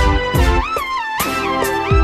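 Music: a track with a kick drum about twice a second and a lead melody that slides up into its notes.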